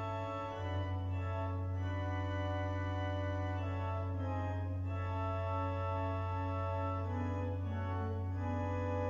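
Church organ playing slow, sustained chords over a held low pedal note, the upper harmony changing every second or two.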